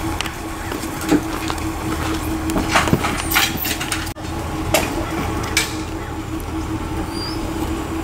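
A steady engine hum with scattered knocks and metallic clanks from a wheeled lift platform being pushed by hand over grass.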